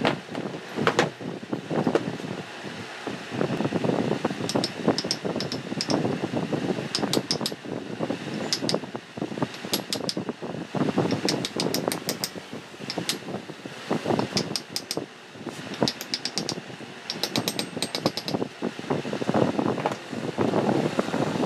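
Repeated short runs of rapid small metallic clicks from hand work on the parts of an electric water pump motor being reassembled. Under them is a constant rushing noise.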